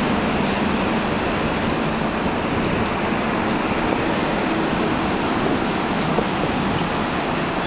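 Steady rush of wind on a cruise ship's open top deck, with a low hum that fades out about half a second in.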